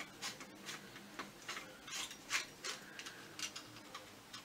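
Small, sharp clicks and taps of coat-rack parts being handled and fitted together by hand, irregular at about three a second.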